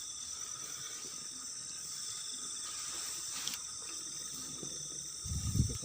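Night chorus of crickets and other insects chirring steadily, several high-pitched pulsing bands at once. A brief low rumble sounds near the end.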